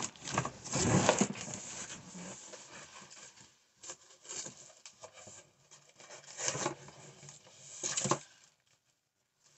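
Thin wooden dollhouse kit pieces being slid and pulled out of a cardboard box, wood scraping against cardboard: one longer stretch at the start, then three short bursts.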